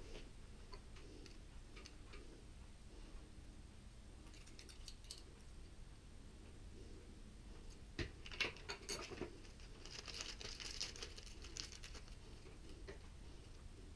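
Faint clicks and rustling from small kit parts and screws being handled during hand assembly, with a few sharper clicks about two-thirds of the way in and a short rustle just after.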